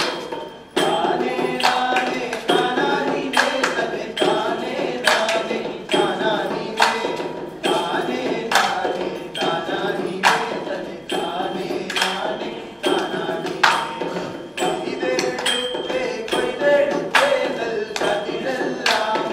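Group singing to a folk dance with a steady hand-drum beat, one stroke a little under every second.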